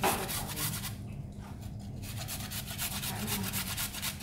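Carrot being grated on a flat handheld metal grater: quick repeated rasping strokes, with a break of about a second starting about a second in.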